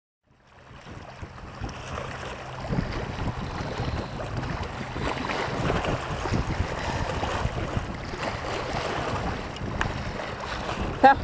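Wind buffeting the microphone over small waves lapping against shoreline rocks, fading in at the start. A brief pitched sound comes near the end.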